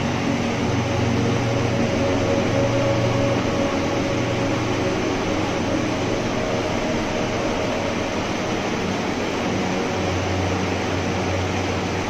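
Mountain stream rushing over boulders in white-water rapids: a steady, even rush of water.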